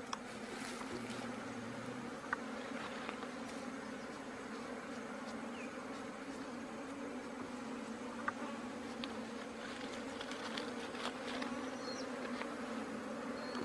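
Honeybee colony buzzing in a steady, dense hum as its ground-cavity nest is broken open and the comb pulled out. Two sharp clicks sound over it, about two seconds in and again past the middle.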